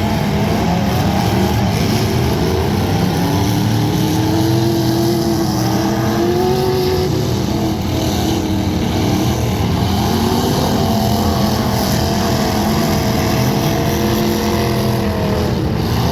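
Several demolition derby cars' engines running and revving at once, their pitches rising and falling.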